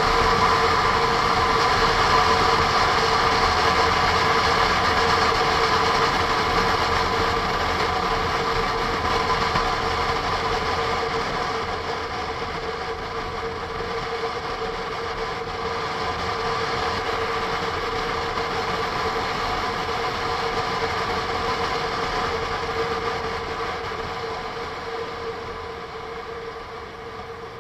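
Honda NC750S parallel-twin motorcycle heard from on board while riding: a steady engine and wind drone with a constant whine running through it. It grows quieter through the second half and drops off further near the end as the bike eases off for a bend.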